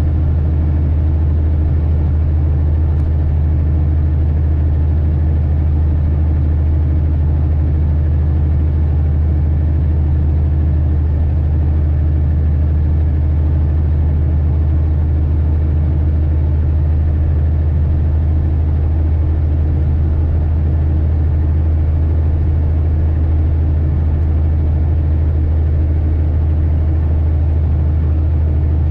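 Heavy truck's diesel engine heard from inside the cab, a steady low drone as it pulls uphill under load, holding an even pitch with no shifts.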